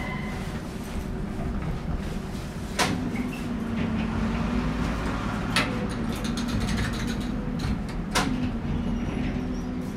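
Rhein-Neckar-Verkehr M8C-NF tram standing at a stop: the inverter drive's whine dies away about half a second in, then the door mechanisms clunk three times, each clunk followed by a brief low hum.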